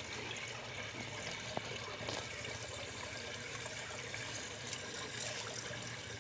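Steady running, trickling water, with a single light click about one and a half seconds in.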